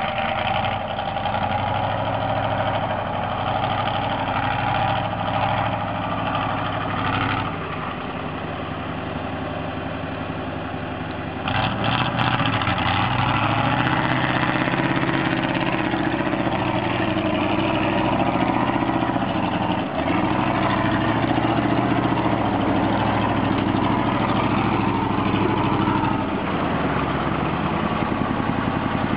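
GAZ-66 truck's engine running as the truck works through deep mud, with a steady engine note that becomes louder about eleven seconds in.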